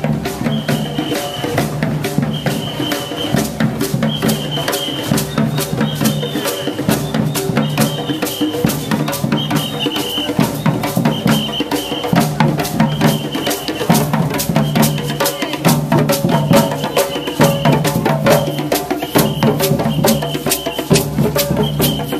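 A street drum group plays a steady, driving beat on bass drums and hand drums, with fast rattling strokes over it and a short high tone that recurs about once a second.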